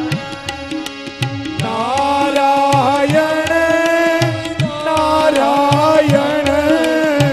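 Indian devotional bhajan music: tabla drumming under a sustained melody line that holds long notes and glides between them.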